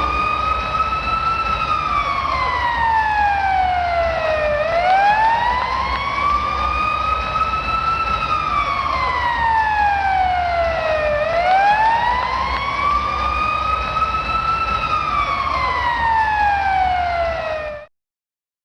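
Washington Capitals goal-horn siren wailing, rising and falling slowly in pitch about two and a half times over a steady low rumble. It cuts off suddenly near the end.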